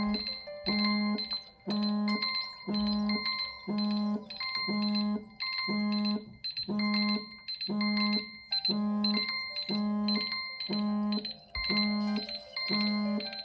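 Smartphone alarm tone ringing: a short electronic melody of pitched notes that repeats about once a second.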